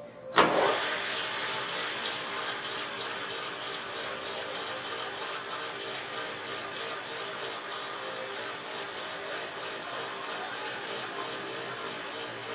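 Kärcher K2 pressure washer switching on with a sudden start about half a second in, then its pump motor running steadily with water spraying.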